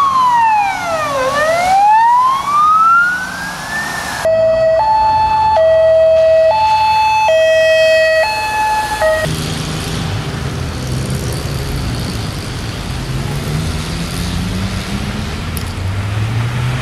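Fire engine siren sweeping down and back up in a wail, then cutting abruptly to a two-tone hi-lo siren stepping between two pitches. After about nine seconds the siren gives way to vehicle engines and a steady rush of tyres through floodwater.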